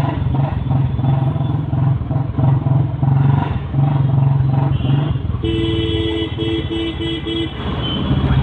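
Motorcycle engine running steadily. About five seconds in, a vehicle horn sounds: one held honk, then a few short toots.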